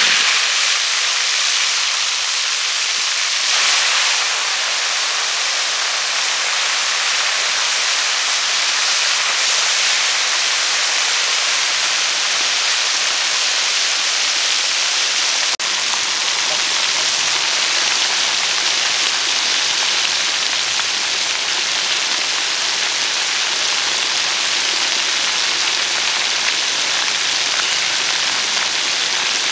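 Marinated chicken pieces deep-frying in hot oil in a steel wok: a loud, steady sizzle throughout.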